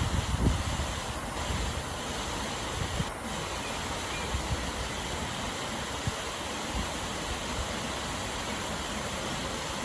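Waterfall rushing steadily, an even hiss of falling water, with a few low thumps in the first second.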